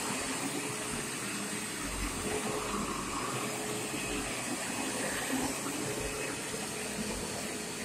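Upright vacuum cleaner running steadily: an even rushing noise with a faint hum.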